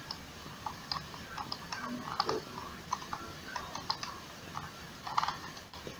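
Light, irregular clicking at a computer, a few clicks a second, from mouse or keyboard use.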